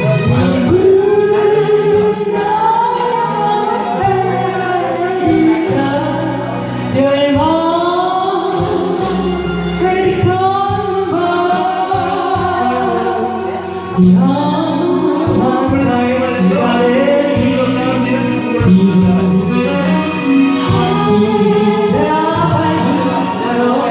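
A solo singer performing a Korean ballad in long, gliding, held phrases over instrumental accompaniment.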